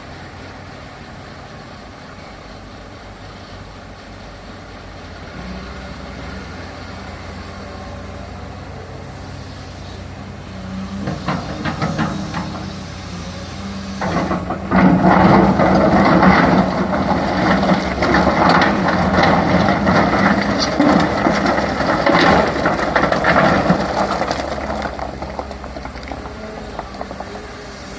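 CAT 320 hydraulic excavator's diesel engine running steadily, its note stepping up about five seconds in. From about eleven seconds in, and much louder from about fourteen to twenty-four seconds, there is a long stretch of clattering and scraping with many sharp knocks as the machine works. It then eases back to the engine alone.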